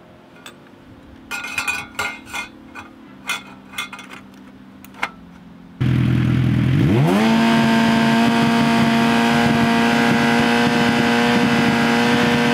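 A few light metal clinks as a baffle is fitted into the motorcycle's silencer, then the Suzuki GSX-R 750's inline-four starts running loudly through its GPR slip-on exhaust with the baffle in. It revs up over about a second and is held at steady high revs for a static sound test.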